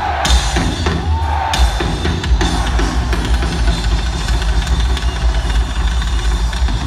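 Live heavy metal band playing through a big PA, heard from far back in the venue: drums with heavy bass, and a few cymbal crashes in the first couple of seconds, over distorted guitar.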